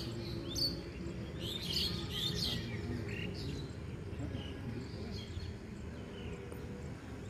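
Small birds chirping: a cluster of quick, high calls in the first few seconds, then fainter scattered calls, over a steady low background rumble.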